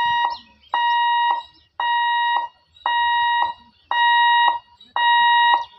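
Level crossing warning hooter sounding a steady, even beep about once a second, each beep a single flat tone lasting just over half a second, signalling that the gate is closed for an approaching train.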